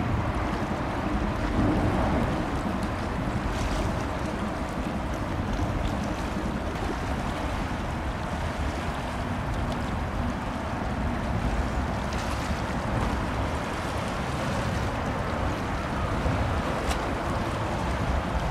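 Wind buffeting the microphone with a low, uneven rumble over a steady wash of sea water, with a few faint ticks.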